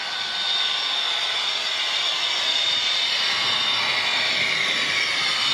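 OO gauge model train running on the layout track: a steady whirring of the locomotive's small electric motor and the coach wheels over the rails, with a thin high whine, getting a little louder about half a second in.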